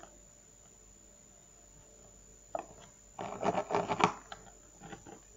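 Scissors cutting into slime on a hard tabletop: quiet at first, a short sound about two and a half seconds in, then about a second of rubbing and clicking that ends in a sharp click, with a few faint ones after.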